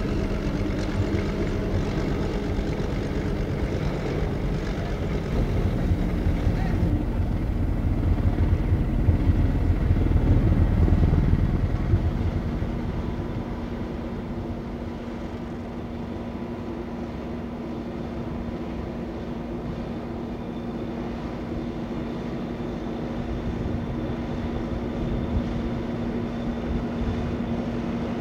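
Tractor engine running with a steady hum; it grows louder from about six seconds in, peaks around ten to twelve seconds, then eases back to a quieter steady run.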